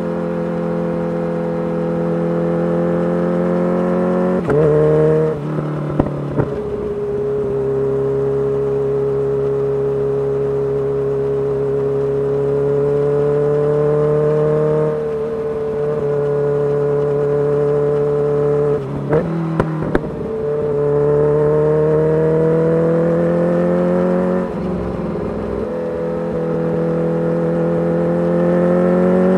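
Kawasaki Ninja H2's supercharged inline-four running through a full titanium exhaust under way. The engine note holds and slowly climbs in pitch, broken by a few short gear changes where it drops, about five, nineteen and twenty-four seconds in.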